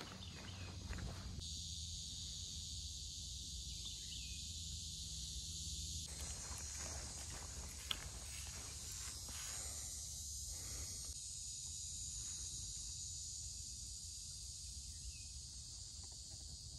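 Steady high buzzing of an insect chorus over a low rumble, with faint footsteps on the trail.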